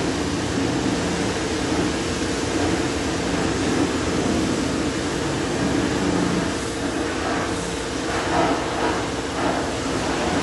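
Steady mechanical drone with hiss, from running machinery such as a pump or fan.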